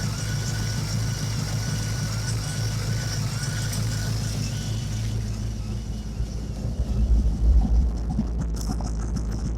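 Ford SVO 351 V8 running at a steady idle, with an unfixed vacuum leak past an injector O-ring. A faint high whine fades out about halfway through, and the low rumble swells briefly near the end.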